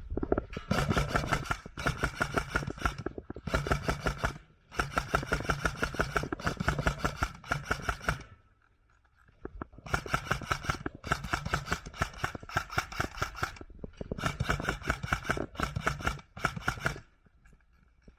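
Airsoft electric gun firing long full-auto bursts: rapid, even cycling over a steady motor whine, several bursts of one to four seconds with short breaks and a longer pause about halfway through.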